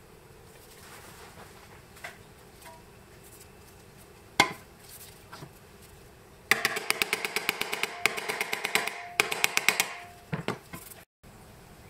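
Small hammer tapping the sheet-metal housing of a vintage crank telephone to work out its dents. There is a single sharp blow about four seconds in, then a fast run of light, ringing metallic taps, several a second, from about six and a half seconds to ten, with a brief pause near nine and a couple of last taps after.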